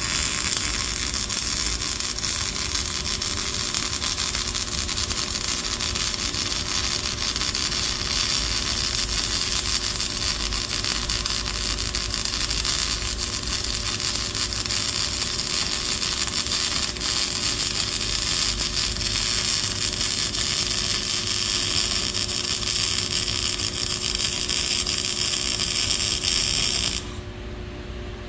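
Steady, high-pitched whirring of a small electric motor tool, running without a break and cutting off suddenly about 27 seconds in.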